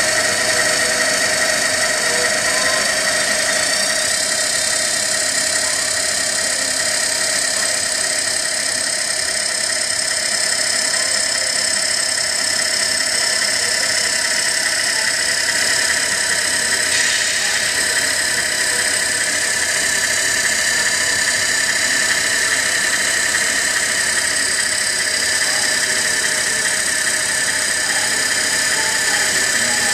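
Steady high-pitched whine from a radio-controlled model dump truck's tipper drive as the aluminium dump body slowly lowers on its telescopic ram. The pitch shifts slightly about 4 s and again about 17 s in.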